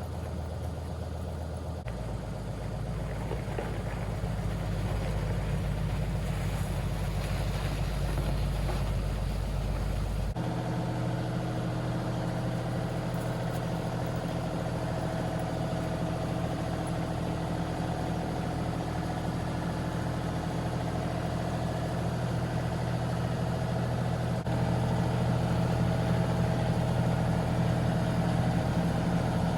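John Deere compact tractor's diesel engine idling steadily while it warms up. Its low note changes about two seconds in and again about ten seconds in.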